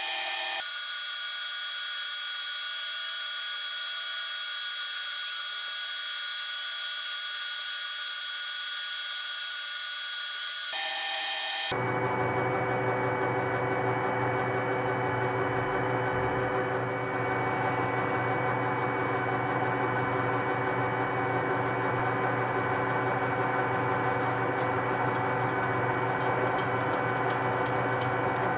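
Metal lathe machining a cast brass ingot: for about the first twelve seconds a steady high-pitched whine with no low end, then, about twelve seconds in, a fuller, lower steady hum of the lathe running as a drill in the tailstock bores into the spinning brass face.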